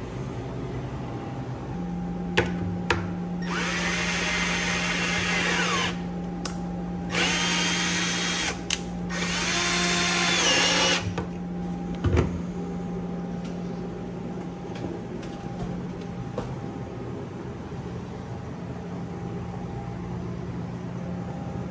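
Milwaukee cordless drill driven into wooden 2x2 shelf framing in three runs of a few seconds each, its motor whine rising as it spins up and dropping at the end of each run. A steady low hum and a few knocks lie underneath.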